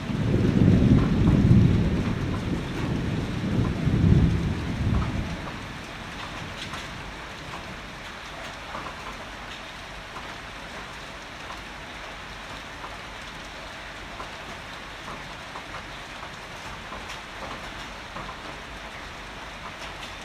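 A roll of thunder rumbling deep and loud for about five seconds, with two peaks, then fading out. Steady heavy rain hisses and patters throughout.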